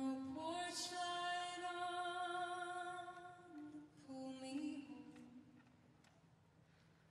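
Recorded music: a solo voice singing a few long, slow held notes, stepping up and then down in pitch, then fading away about five seconds in.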